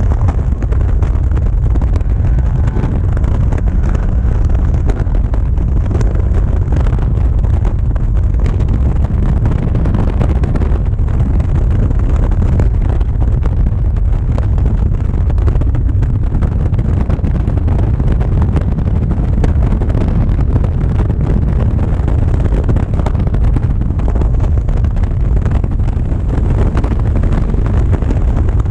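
Caterham Seven race car at speed on track, its engine running under heavy wind buffeting on the open-cockpit onboard microphone: a loud, steady rumble.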